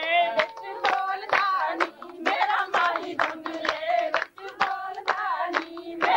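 Women singing Punjabi boliyan (folk couplets) to steady hand-clapping, about two claps a second, the clapped beat of giddha.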